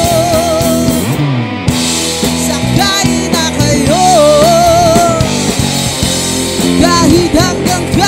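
Rock band playing live: a male singer holds long notes with vibrato, near the start and again about four seconds in, over electric guitar, electric bass and drum kit.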